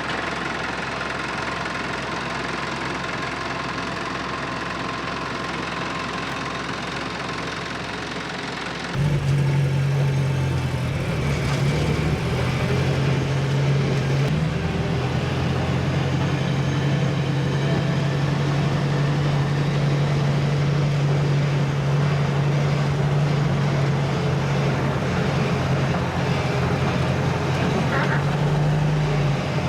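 Car engine idling steadily; about nine seconds in, the sound jumps louder into a deeper, steady hum.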